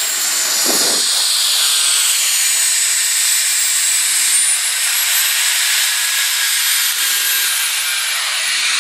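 Twin JetCentral Super Eagle model jet turbines (about 30 lb thrust each) of a large RC F-4 Phantom running as it taxis up close and passes: a loud high whine over a rushing hiss. The whine's pitch falls in the first second and rises again around five seconds in.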